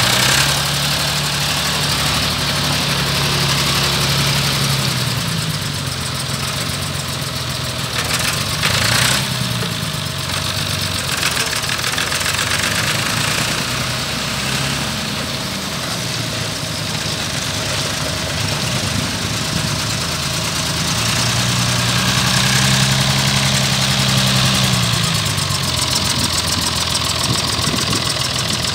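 David Brown 1690 tractor's diesel engine running as the tractor is driven about, the engine note climbing and falling with the revs near the start and again about three-quarters of the way through. A couple of sharp knocks come about a third of the way in.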